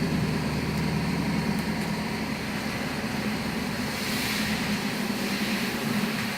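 Steady low background hum of running machinery, with a faint hiss swelling about four seconds in.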